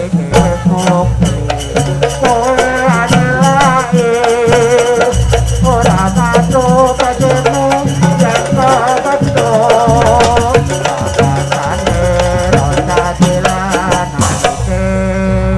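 Live jaranan ensemble music: drums and jingling, rattling percussion strike steadily under a wavering lead melody.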